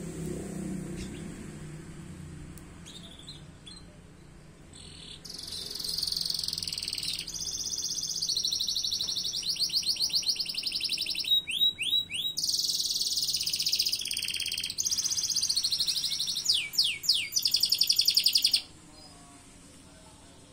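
Caged crested starblue ('starblu jambul') songbird singing: a loud, high, continuous warbling song with rapid trills and quick sweeping whistles, starting about five seconds in and breaking off abruptly near the end.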